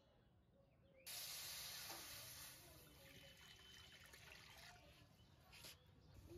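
Water poured from a plastic jug into a black iron wok, splashing as the pan fills. The pour starts suddenly about a second in, is loudest at first, then runs on more evenly and stops shortly before the end.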